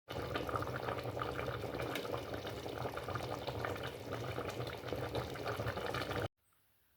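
Water sound, dense with small pops and crackles, that cuts off suddenly a little after six seconds.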